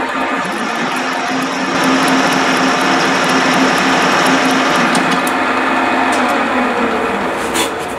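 Vertical milling machine running, its cutter taking a facing cut across a cast steam-locomotive cylinder block clamped in the vise while the table is hand-fed. A steady cutting noise with a held hum, louder from about two seconds in and easing off near the end as the cutter runs out of the work.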